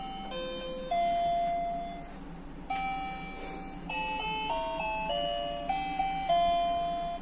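Electronic lullaby from a baby bassinet's built-in music unit: a slow tune of single bell-like notes, each starting sharply and fading.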